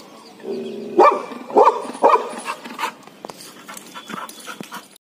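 Yellow Labrador retriever barking: three loud barks about half a second apart a second in, then quieter, scattered sounds that die away.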